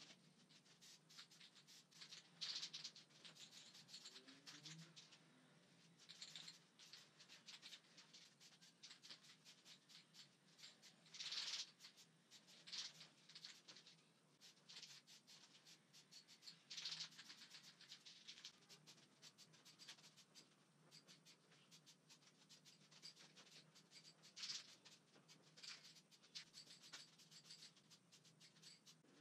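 Faint short hisses of an aerosol spray-paint can being sprayed, about seven bursts each under a second long and a few seconds apart, with light clicking in between.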